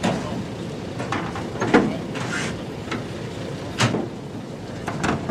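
Irregular knocks and bangs around a livestock truck's stock crate, about seven in a few seconds, with a short hiss in the middle.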